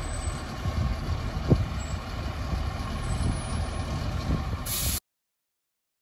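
Fire engine's diesel engine running as the truck rolls slowly up, a steady low rumble with a single sharp knock about one and a half seconds in. The sound cuts off suddenly about a second before the end.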